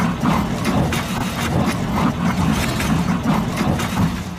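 Heavy truck's diesel engine running with a rough, uneven pulse. It eases off near the end.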